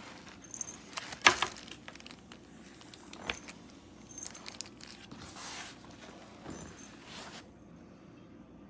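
Rustling and handling noises with scattered clicks and knocks, the sharpest knock about a second in; the noises stop near the end, leaving a faint hum.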